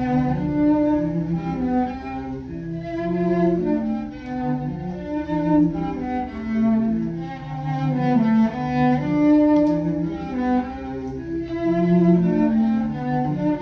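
Live cello bowing a melodic line of sustained notes, played along with recorded music coming from hi-fi loudspeakers.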